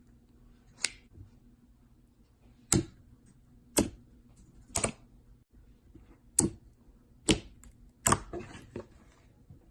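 Slime being squeezed and poked, giving seven sharp pops and clicks about a second apart as air pockets burst, with a short crackling stretch near the end.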